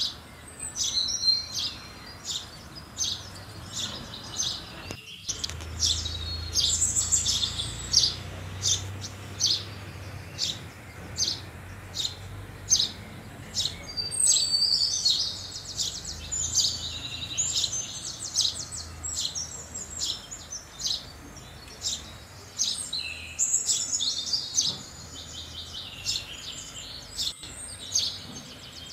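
House sparrows chirping: a long run of short, repeated chirps, broken three times by bursts of faster chattering.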